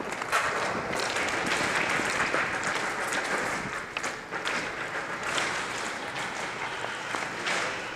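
A dense, continuous clatter of many short sharp clicks and pops echoing through a large hall, typical of airsoft guns firing and BBs striking plywood walls.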